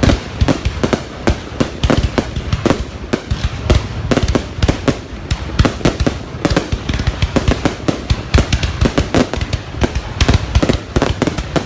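Fireworks going off in a dense, continuous barrage of sharp bangs, several a second.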